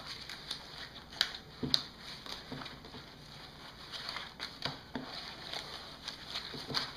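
A large burdock leaf being folded by hand around pork ribs: soft rustling and crackling of the leaf, with scattered light taps and two sharper clicks a little over a second in.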